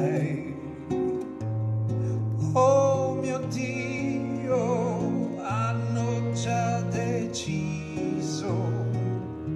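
Accordion and acoustic guitar playing an instrumental passage: the accordion holds long low notes that change every second or so under a wavering melody line.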